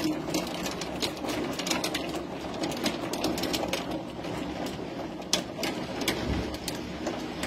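Heavy hailstorm: hailstones pelting down, a dense steady rattle of countless sharp clicks, with one harder crack about five seconds in.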